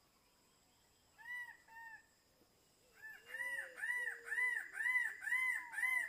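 Male king bird of paradise calling: two short arched notes, then after a pause a faster run of about seven louder arched notes, roughly two a second.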